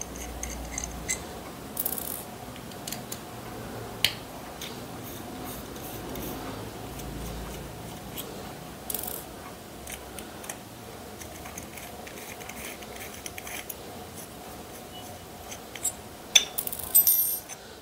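Small metallic clicks and scrapes of a 2.5 mm Allen key working stainless steel screws out of an aluminium kickstand extender, with a cluster of louder clicks near the end.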